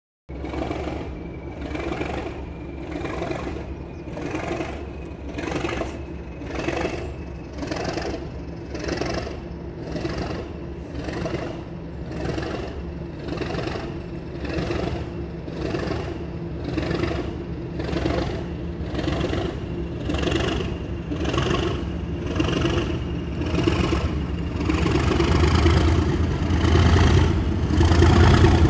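Class 97 (Class 37) diesel locomotive's English Electric V12 engine working hard to move a 600-ton ballast train away, a deep rumble with a high whistle over it, beating in a steady pulse about every two-thirds of a second. It grows louder and deeper over the last few seconds.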